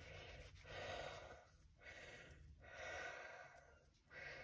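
Faint breathing close to the microphone, in and out about every two seconds, a softer breath and a stronger one in turn.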